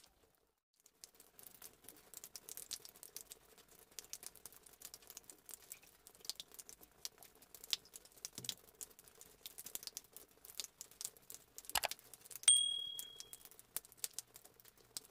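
Faint crackling and rustling with many tiny clicks. About twelve seconds in there is a sharp click and then a single bright ding that rings out for about a second: a subscribe-button click-and-bell sound effect.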